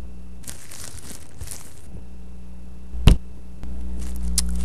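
Two short swishing noises, then a single loud sharp click about three seconds in and two fainter clicks near the end, over a low steady electrical hum.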